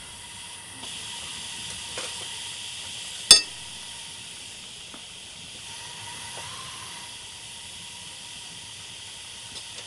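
A 5-inch gauge Double Fairlie live steam locomotive in steam, hissing steadily, the hiss growing a little louder about a second in. A single sharp click about three seconds in stands out, with a few fainter clicks around it.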